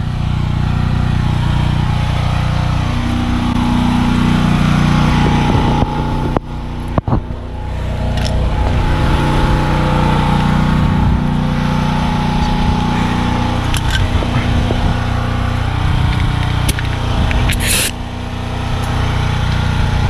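A motor runs steadily with a loud, low drone throughout, dipping briefly twice about six and seven seconds in. A short hiss comes near the end.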